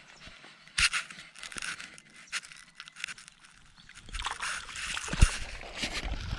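Yabby net being hauled in by its rope through shallow creek water: sloshing and splashing that grows from about four seconds in, with scattered clicks before it and one sharp thump just after five seconds.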